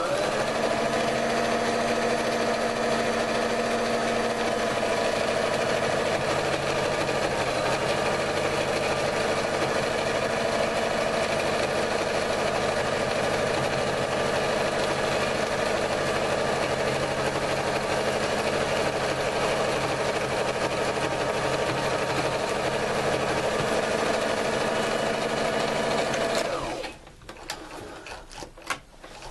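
Sewing machine running steadily, stitching loose stitches through a seam in blue-jean denim. It stops abruptly near the end, followed by a few faint clicks.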